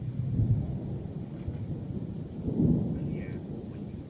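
Rolling thunder: a deep rumble that swells about half a second in, peaks again more strongly around two and a half seconds in, then dies away.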